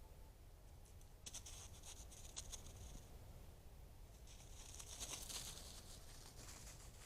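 Faint rustling and light pattering in two stretches of about two seconds each, over a steady low rumble.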